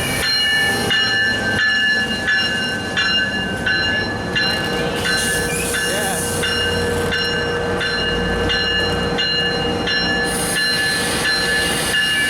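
Tri-Rail locomotive's bell ringing steadily, about two strokes a second, over the train's running engine as it stands boarding at the platform.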